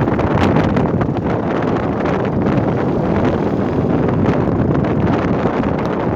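Strong wind buffeting the microphone: a loud, dense rush that flickers with short gusts.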